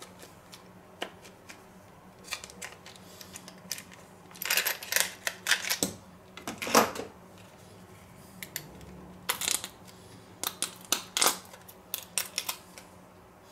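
A tomato paste tube being pressed out through a clamp-style tube squeezer and then by hand: scattered clicks of the squeezer and crinkling of the tube, in two busier bursts around the middle and near the end.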